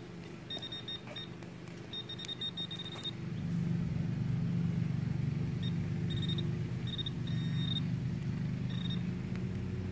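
Handheld pinpointer probe giving short high beeps in clusters as it is worked over the dug hole, searching for a target. A steady engine hum runs underneath and grows louder about three and a half seconds in.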